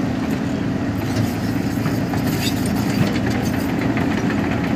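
Heavy diesel engines of a Vögele asphalt paver and a Volvo crawler excavator running steadily as the paver is driven off a trailer.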